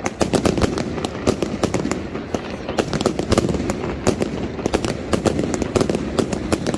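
Night mascletà fireworks: a dense, irregular run of sharp bangs and crackles from aerial shells bursting overhead, several every second, over a continuous rumble.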